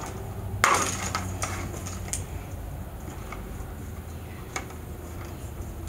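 Handling noise from taping a new cable to a fiberglass fish rod: a brief scratchy rustle under a second in, then a few light clicks, over a steady low hum.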